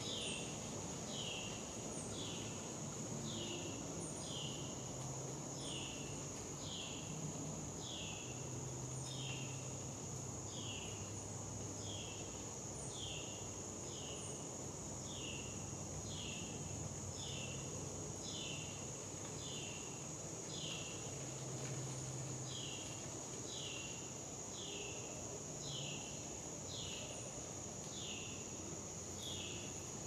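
Insects chirping steadily: a continuous high buzz under a regular falling chirp repeated about one and a half times a second.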